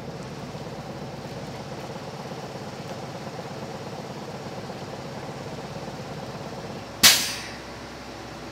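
A school bus engine idling steadily. About seven seconds in comes one sharp burst of air hiss from the bus's air system, dying away within half a second.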